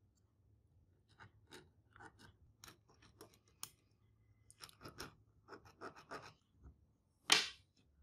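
Ballpoint pen scratching short strokes on a wooden block, ruled against a small metal square: a run of brief, faint scrapes. Near the end comes one louder, longer scrape.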